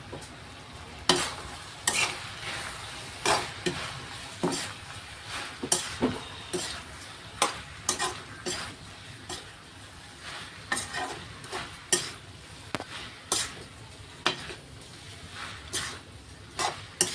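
Spatula stirring okra frying in a pan: irregular scrapes against the pan, roughly one a second, over a steady faint sizzle.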